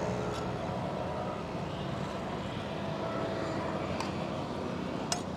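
Steady street traffic rumble, with a few short, sharp clicks about a second apart and near the end.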